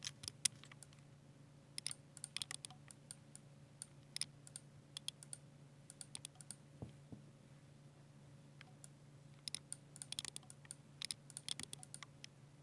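Typing on a Ducky 60% mechanical keyboard with silver switches: irregular runs of quick keystroke clicks with short pauses, sparser for a few seconds in the middle. A low steady hum runs underneath.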